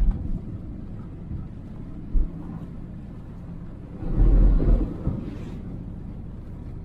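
Motorhome driving through heavy rain on a flooded road, heard from inside the cab: a steady low rumble, with a brief thump about two seconds in and a louder rushing surge about four seconds in.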